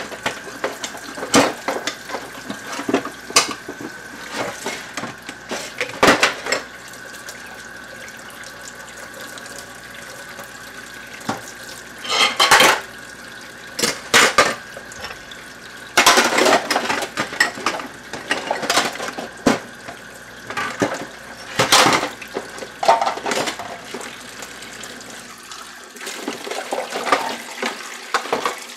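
Dishes being washed by hand under a running kitchen faucet: a steady stream of water into a stainless-steel sink, with irregular clinks and clatters of dishes and cutlery knocking together and against the sink.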